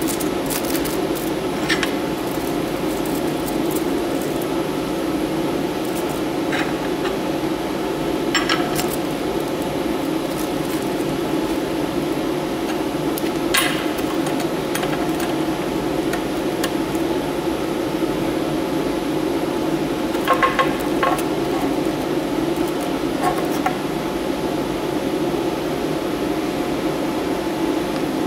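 Aluminum foil crinkling and a metal clamp clicking as they are handled, a few short crisp sounds spread out, over a steady machine hum.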